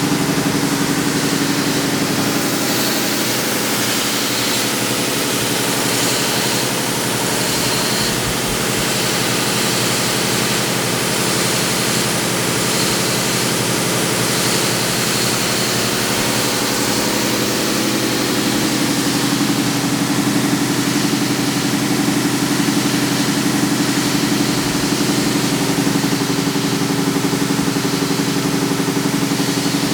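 SCMI Uno 36-inch wide belt sander running, with its 18 horsepower main motor driving the sanding head and the feed conveyor turning: a steady machine hum with a hiss over it.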